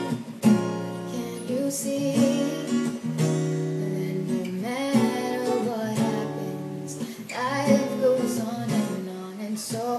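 A song with strummed acoustic guitar and a sung vocal melody.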